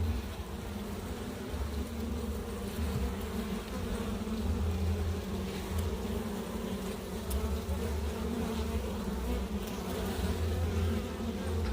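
A swarm of honey bees from an open hive buzzing in a steady, dense drone.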